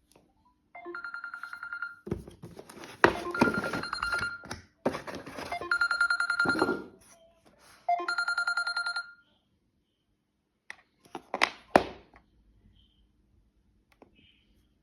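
Samsung Galaxy Z Fold 2 alarm ringing in four bursts of fast-pulsing beeps, each about a second long, while boxes are knocked and shifted about. The alarm stops about nine seconds in, and a few more knocks follow.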